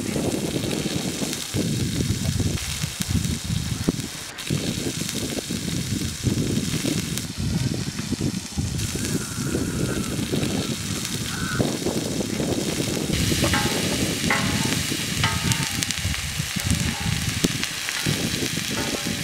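Butter and sliced onions sizzling on a large hot iron griddle, stirred and scraped with a perforated metal ladle. A few goose-like honks sound in the background about two-thirds of the way through.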